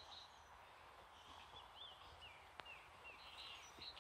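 Near silence, with a few faint bird chirps in the background and one faint click about two and a half seconds in.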